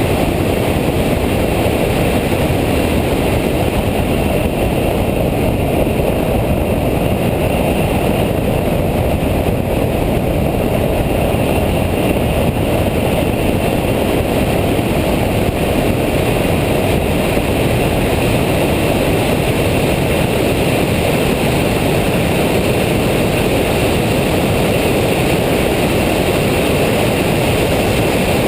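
In-car noise of a Nissan Nismo track car being driven on a race circuit: engine, wind and tyre noise blended into a loud, steady rumble.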